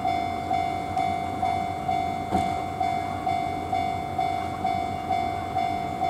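Japanese railway level-crossing alarm ringing its repeated electronic bell tone at about two strokes a second. It is the sign that the crossing is closed, with the barriers down for an approaching train.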